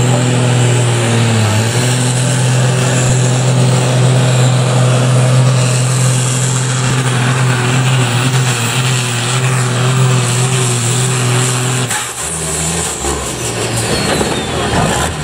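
Tuned turbocharged diesel engine of a Fendt 930 farm-stock pulling tractor running flat out under load as it drags the weight sled, a loud steady drone. About twelve seconds in it comes off full power and the note drops and wavers.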